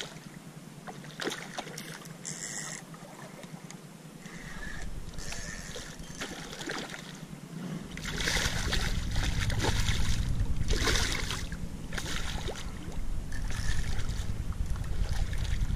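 Hooked redfish thrashing at the surface of shallow creek water, splashing again and again as it fights the line. From about halfway through, a low rumble grows underneath.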